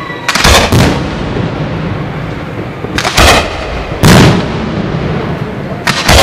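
Aerial firework shells bursting in a series of loud bangs, several of them in quick pairs: one pair about half a second in, another about three seconds in, a single bang about four seconds in and a last pair near the end.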